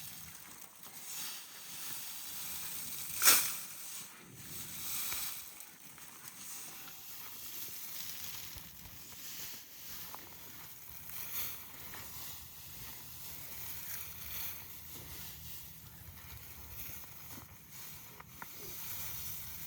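Low hissing, rustling noise, with one sharp click about three seconds in.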